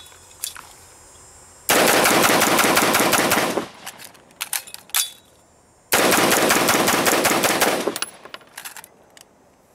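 Two bursts of rapid automatic-style gunfire, each about two seconds long and about two seconds apart. Sharp metallic clicks come before, between and after them, fitting magazine handling.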